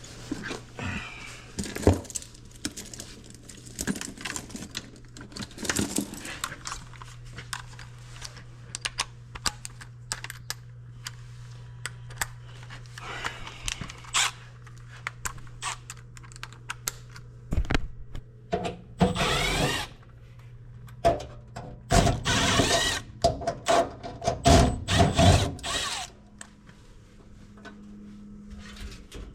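Cordless drill/driver running in several short bursts, mostly in the second half, as screws are backed out of a furnace access panel, amid clicks and knocks of the sheet-metal panel and tools being handled.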